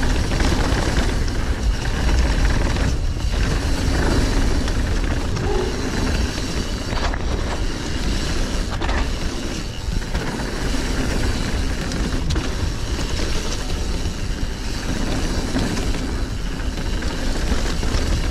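Mountain bike rolling fast down a gravel trail, heard through a bike-mounted or helmet action camera: steady wind rush on the microphone and tyre noise on loose gravel, with a couple of sharp clacks from the bike over bumps.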